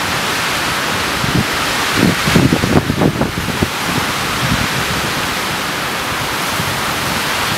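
Storm-force wind rushing through tall trees with driving rain, in a steady loud roar. Gusts buffet the microphone in bursts of low rumble, heaviest from about two to three and a half seconds in.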